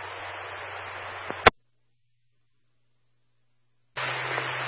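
Two-way radio scanner static: an open channel hissing with a low steady hum, cut off by a sharp squelch-tail click about a second and a half in. Dead silence follows, then another keyed-up carrier hiss with hum opens near the end.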